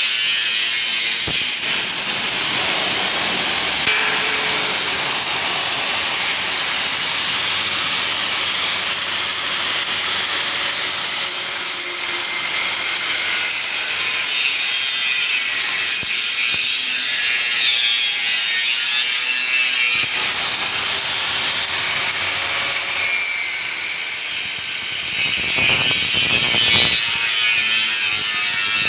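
A perforated steel cable tray being cut at its marked lines: a steady metal-cutting noise with a constant high whine.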